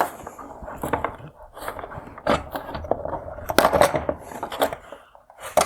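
Hard plastic clicks and scraping as a wire harness is unclipped and pulled out of an LED headlight housing, with a quick series of sharp snaps, the loudest near the middle and one more near the end.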